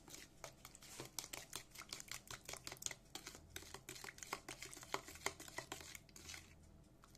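Powdered sugar and lemon juice being stirred into a glaze in a bowl: the utensil clicks and scrapes against the bowl several times a second, stopping about a second before the end.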